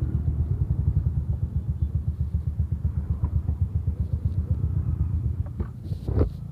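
Motorcycle engine running at low speed with a steady, fast pulsing throb, which drops away near the end.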